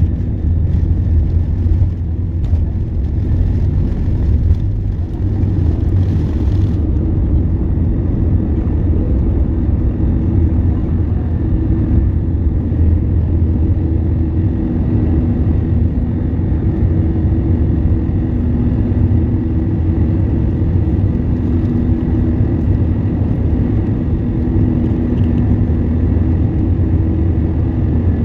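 Jet airliner's engines and airflow heard from inside the cabin during takeoff and initial climb: a loud, steady low rumble with a faint steady high whine.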